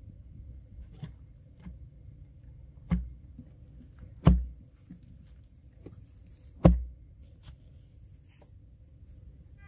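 Steel hand auger being jabbed and worked down into soil to bore the starting hole for a hand-pump pipe. Three dull thuds a second or two apart, with light clicks and scrapes of earth between them.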